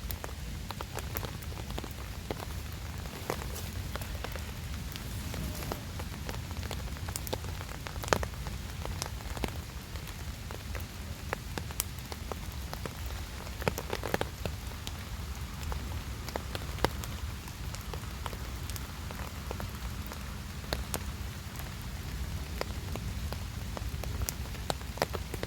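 Steady rainfall, with many sharp, irregular drop ticks over a constant patter.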